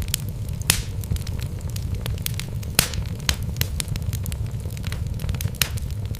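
Wood fire burning in a fireplace: a steady low rumble of flames with irregular sharp crackles and pops from the logs, two louder pops about a second in and near the middle.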